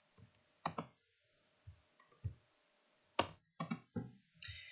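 Faint, sharp clicks of a computer mouse and keyboard, spread out at first, then a quick cluster of several near the end.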